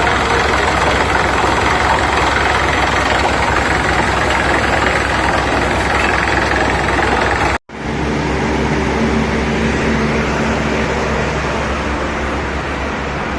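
Loud, steady running of a borewell drilling rig's engine. About halfway through the sound cuts out for an instant and comes back as a steadier hum.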